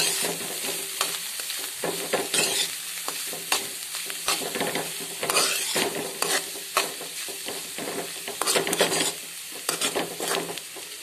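Metal spoon stirring and scraping a bitter gourd and grated coconut thoran around a wide metal pan, with repeated uneven scrapes against the pan over a steady sizzle of the steaming mixture, stirred so it does not stick.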